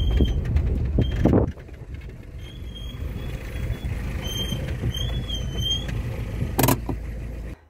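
Car driving, heard from inside the cabin: a low road and engine rumble that drops sharply about a second and a half in, then runs on more quietly. A few short high squeaks and a couple of sharp knocks sound over it.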